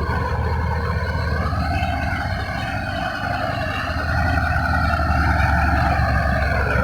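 Diesel engine of heavy construction machinery running steadily, getting louder about four seconds in.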